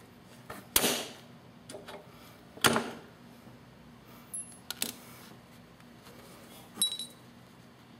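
Sharp clicks and knocks of metal mower parts handled by hand as a handlebar retaining clip is worked off, about five spread out, the last with a short metallic ring.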